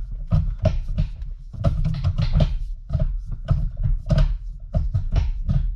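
Aftermarket short shifter being worked back and forth through the gears, giving a run of irregular clunks and knocks several times a second.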